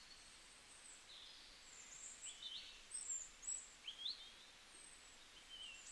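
Near silence, with a series of faint, high bird chirps and short whistles from about two seconds in.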